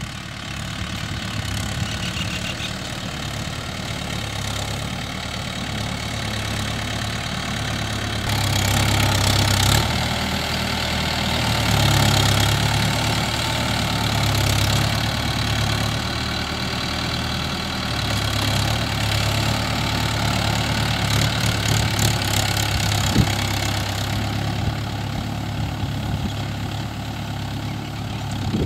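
Mahindra Yuvo 575 DI tractor's four-cylinder diesel engine running steadily while pulling a tine cultivator through the soil. It grows louder about a third of the way in as the tractor comes close, then eases off as it moves away.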